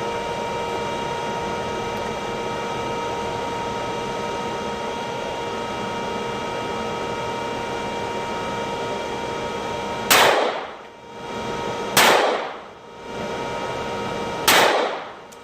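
Three gunshots about two seconds apart, each a sharp crack, over a steady background hum.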